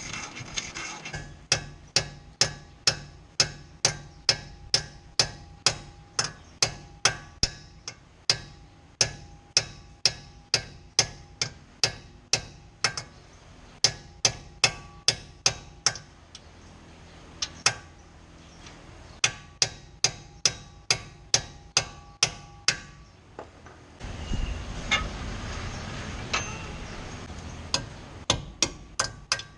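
Hammer striking metal in runs of sharp blows, about two a second, with short pauses between runs. About two-thirds of the way in the blows stop for a few seconds of steadier noise, then resume briefly near the end.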